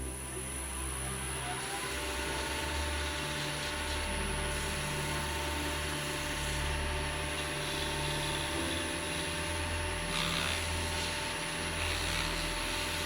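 Wood lathe motor starting up, its pitch rising as it comes up to speed, then running steadily with a high whine, and winding down near the end. Background music plays underneath.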